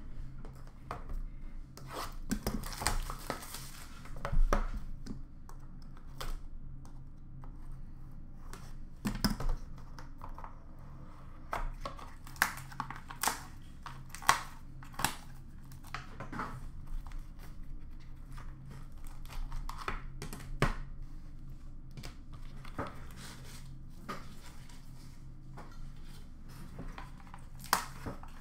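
Hands opening a shrink-wrapped box of hockey trading cards: plastic wrap tearing and crinkling, then cardboard and cards being handled, with scattered sharp clicks and taps over a faint steady hum.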